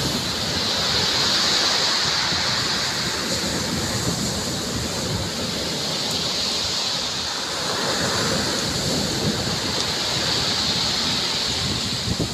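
Ocean surf breaking and washing up a pebble beach: a continuous rushing that swells and eases with the waves.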